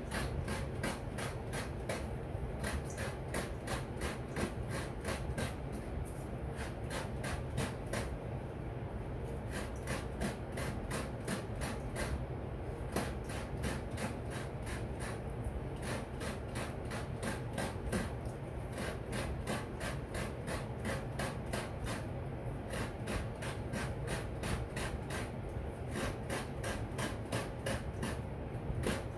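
Fresh coconut meat being scraped out of the shell on a stool-mounted coconut grater (kudkuran): a steady rhythm of rasping strokes, several a second, as the half-shell is worked back and forth over the serrated blade.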